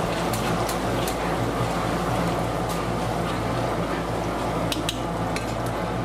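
Contents of a large iron kadhai sizzling and bubbling steadily while upit is cooked. A steel ladle stirring and scraping against the pan gives several sharp clicks in the first few seconds. A steady low hum runs underneath.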